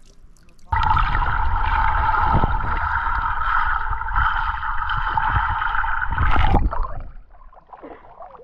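Muffled underwater gurgling and rumble with a steady hum: a camera microphone submerged in pond water. It starts suddenly less than a second in and cuts off about two seconds before the end, as the camera goes under and comes back out.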